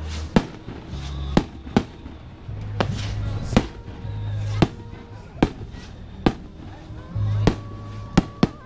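Firecrackers going off, a series of sharp bangs at uneven spacing of roughly one a second, with two close together near the end.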